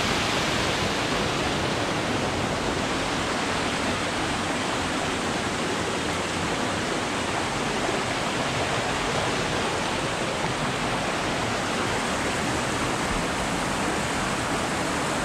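Steady rush of a rocky creek's water flowing over boulders, even and unbroken throughout.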